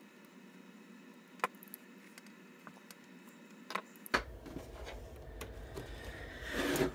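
Faint scattered clicks and taps of a screwdriver working a small plastic inline on/off switch being fitted onto a lamp cord. About four seconds in there is a sharper click, then a low rumble of handling noise that swells near the end.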